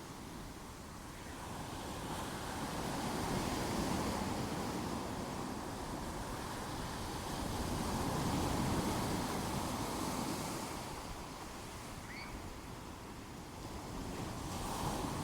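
Sea waves breaking and washing in, swelling and fading in two slow surges. A brief faint chirp comes late on.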